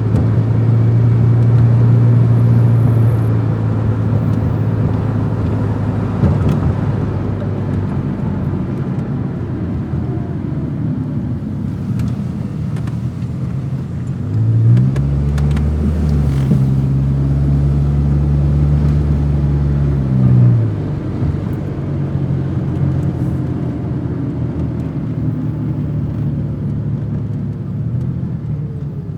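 Car engine running, its pitch rising about halfway through, holding high for several seconds, then dropping back.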